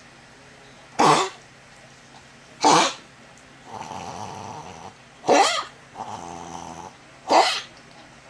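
A dog coughing four times in short, loud bursts about two seconds apart, with quieter drawn-out sounds between the later coughs.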